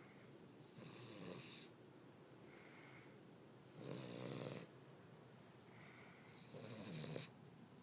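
King Charles spaniel snoring faintly in its sleep: three snores, about three seconds apart.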